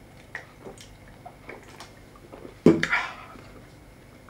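Eating and drinking sounds: faint wet mouth clicks of chewing rice, with one louder brief sound about two and a half seconds in that fades quickly.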